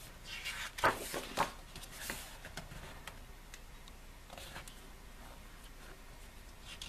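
Pages of a glossy album photobook being turned and handled: a few short paper rustles and taps in the first couple of seconds, one more a little after the middle, then quiet handling.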